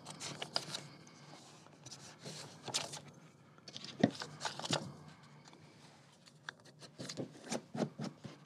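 Book page rustling and crinkling as it is folded over and creased down with a bone folder, with short scratchy rubs of paper and a knock about four seconds in, the loudest sound.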